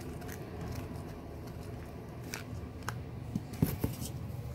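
Cardboard tubes handled against a cardboard box: a few light clicks and scrapes of cardboard, bunched in the second half.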